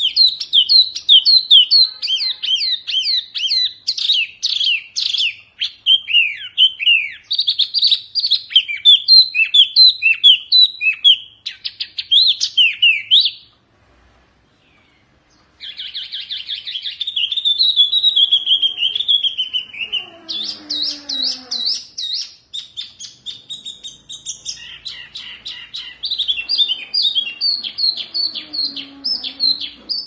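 A caged wambi (hwa mei mini) singing loudly in fast runs of rapid, downward-slurred whistled notes. It breaks off for about two seconds midway, then starts up again.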